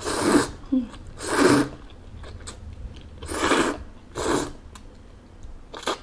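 A person slurping noodles, sucking the strands in with four loud slurps about a second apart, then a brief one near the end.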